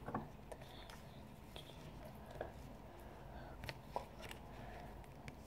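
Faint handling noise of a phone held close to the microphone and a small paper booklet being picked up: scattered soft clicks and rustles, with a sharper tap about four seconds in.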